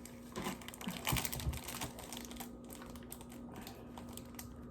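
Light clicks and crackles of plastic packaging being handled as gingerbread house pieces are taken out of a kit, in scattered bursts of quick ticks.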